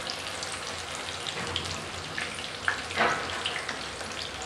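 Masala-coated king fish (surmai) steaks frying in hot oil in a pan: a steady sizzle with scattered crackles and pops, and a louder burst of crackling about three seconds in.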